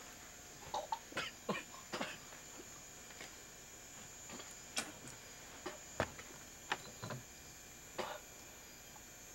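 A scattering of short, irregular clicks and taps, about ten in all and the sharpest near the middle, over a faint steady hiss.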